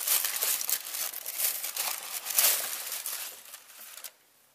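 Tissue paper and a paper packing slip in a shoebox crinkling and rustling as a hand pushes through them to pull out a sneaker. The crackling is dense and uneven and stops about four seconds in.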